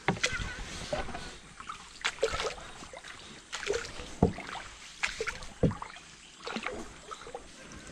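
A small boat being paddled: paddle splashes in the water and irregular knocks against the hull.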